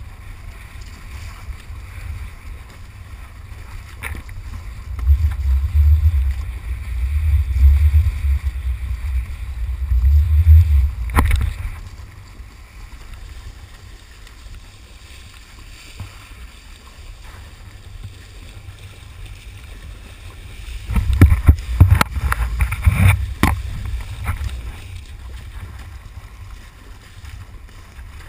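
Wind buffeting a GoPro's microphone while kitesurfing over chop: a low rumble that swells twice for several seconds at a time, over a steady hiss of water and spray, with a few sharp knocks.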